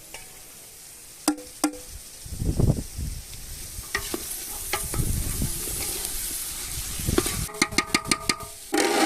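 Food sizzling in a pan while it is stirred, with a utensil clicking and scraping against the pan; the clicks quicken near the end.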